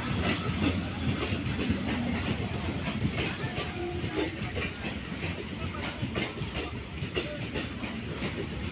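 Indian Railways passenger coaches rolling past close by, their wheels clattering over the rail joints with a steady rumble and a run of sharp clicks.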